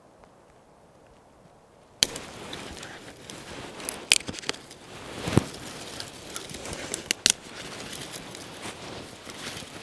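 Dry twigs and sticks snapped by hand, a series of sharp separate cracks starting about two seconds in, the loudest around the middle.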